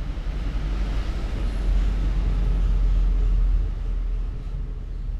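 Low rumble of a passing road vehicle, swelling about a second and a half in and fading after about three and a half seconds.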